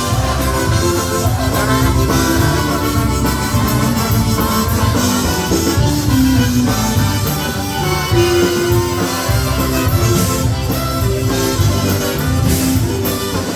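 Polka band playing live: an instrumental passage with drums and bass underneath and sustained lead instrument notes, no singing.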